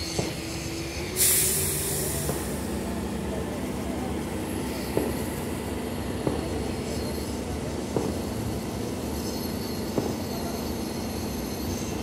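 Liebherr mobile crane's diesel engine running steadily, with a loud hiss about a second in and a few sharp clicks every second or two.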